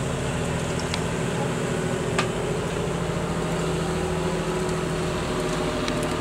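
An engine running at a steady speed: a low, even drone made of several steady tones, with two faint clicks in the first few seconds.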